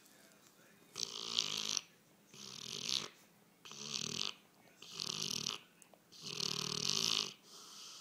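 Bullmastiff snoring: five snores in quick succession, each under a second long, beginning about a second in.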